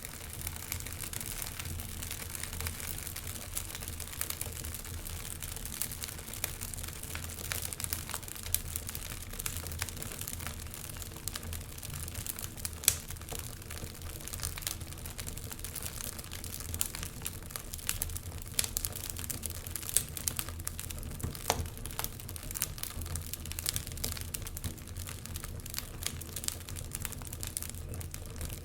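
Wood fire in a fireplace crackling, with irregular sharp pops scattered throughout and a sharper pop about halfway through, over a steady low rumble.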